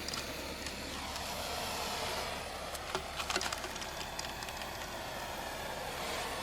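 Gas torch flame hissing steadily while it heats a plastic water pipe to expand it, with a short burst of crackles about three seconds in.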